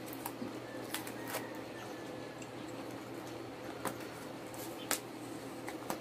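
Paper and plastic wrapping being peeled from a small perfume bottle by hand: a few sparse crinkles and clicks over a steady low hum.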